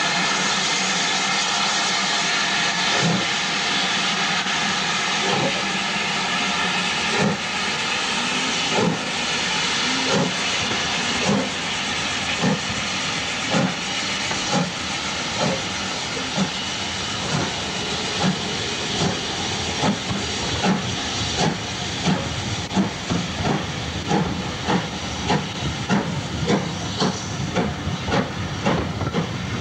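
BR Standard Class 5 steam locomotive 73096 starting a train: a steady hiss of escaping steam, and from a few seconds in the exhaust beats, slow at first and quickening to two or three a second as the train gets under way.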